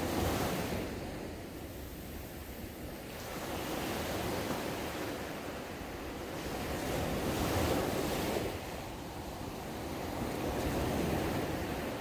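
Small waves breaking and washing up a sandy beach, the surf swelling and easing about every three to four seconds.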